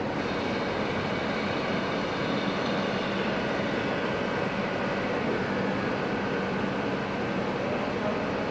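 ÖBB Cityjet electric multiple unit standing at the platform, its converter and cooling fans running with an even hum and hiss and a few steady tones.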